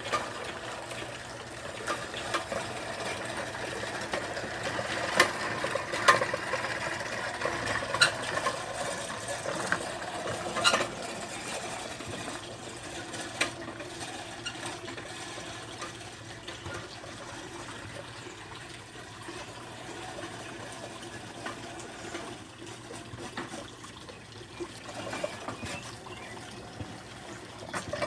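Electric motors of a home-built remote-controlled lawn mower whirring steadily, with scattered sharp clicks and knocks, louder in the first half.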